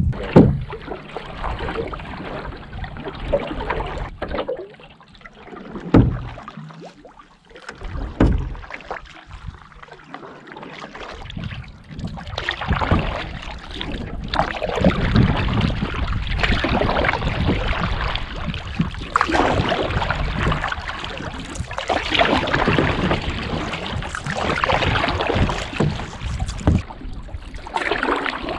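A canoe under way: water swishing and splashing in regular swells about every two to three seconds, as with paddle strokes, with wind buffeting the microphone.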